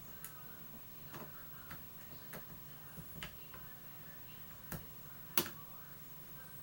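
Irregular light clicks of a hook pick and tension wrench working the pins inside a pin-tumbler challenge lock, with two sharper clicks about five seconds in.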